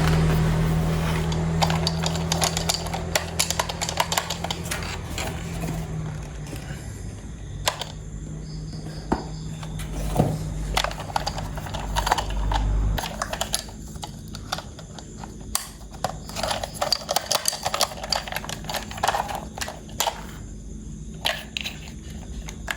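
Irregular clicks, taps and rattles of plastic toy parts being handled and fitted together, with a low hum that fades away during the first half.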